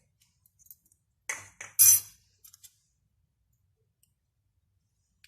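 A spoon clinking and scraping against a mixing bowl a few times, about a second and a half in, the last clink the loudest, then two faint ticks.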